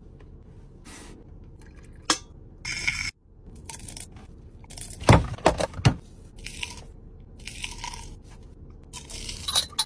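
Crisp fried pastry crunching and crackling as it is pulled apart by hand, in a series of short bursts with a few sharp snaps, the loudest about halfway through.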